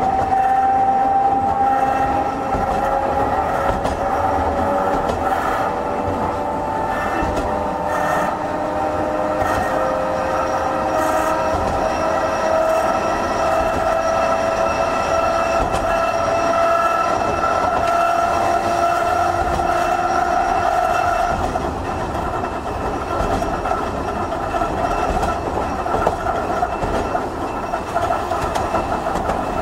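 Hankai Tramway Type 351 tram running under power, its nose-suspended (tsurikake) traction motors and gears whining. The whine is several tones that climb slowly in pitch as the tram gathers speed. About two-thirds of the way through the whine fades, leaving a steady rumble of wheels on rail.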